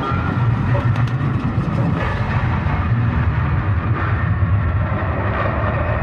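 Designed horror sound effect: a dense, steady industrial rumble, heaviest in the low end with a rough grinding texture above it, and a couple of faint clicks about a second in.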